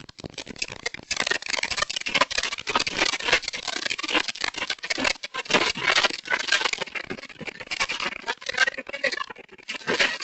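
Building contents rattling and clattering under earthquake shaking: a dense, continuous racket of many rapid knocks and rattles in a room, with voices mixed in.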